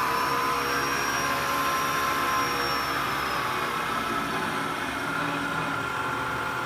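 Acra vertical milling machine's spindle head running under its 3-horsepower motor, a steady motor hum with a whine. The whine rises and then falls in pitch about halfway through as the variable-speed handwheel is turned to raise and lower the spindle speed.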